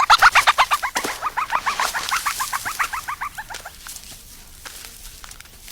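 A rapid series of short, high chirping animal calls, about six to eight a second, fading out after about three and a half seconds, followed by faint rustling.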